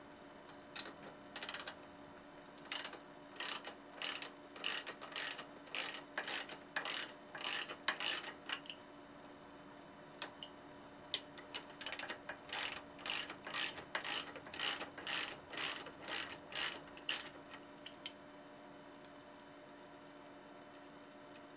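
Ratchet wrench clicking in quick back-and-forth strokes, about two a second, as the nut on a bicycle caliper brake's mounting bolt is backed off. It runs in two spells with a short pause in the middle, then stops near the end.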